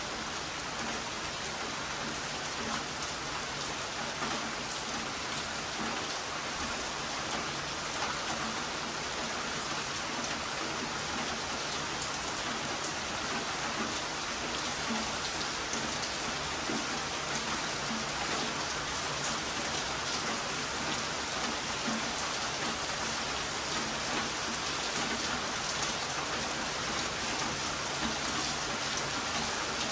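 Heavy rain falling steadily: a dense hiss with many separate drops striking a surface.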